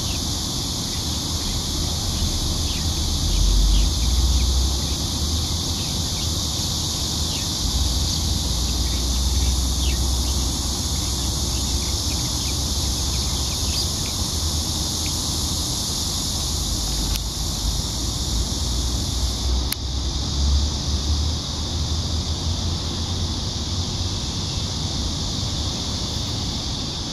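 A steady chorus of insects chirring in the field, with gusts of wind rumbling on the microphone that come and go, strongest about four seconds in, and a few faint chirps in the first half.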